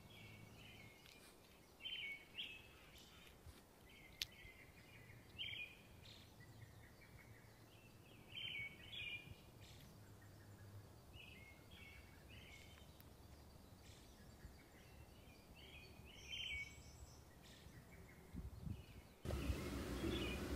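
Faint outdoor ambience with short bird chirps every few seconds. Near the end a louder, even rush of noise comes in.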